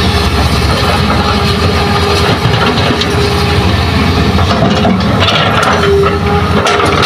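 Hitachi hydraulic excavator running steadily under load as the boom swings and the bucket drops into the spoil pile, with a brief scrape of the bucket into earth and rock about five seconds in. A steady high whine from the hydraulics comes in near the end.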